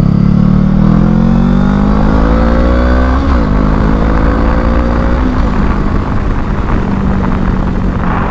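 Honda Rebel 500's parallel-twin engine accelerating up through the gears: the pitch rises for about three seconds, drops at a shift, rises again and drops at a second shift about five seconds in, then holds steady at cruising speed.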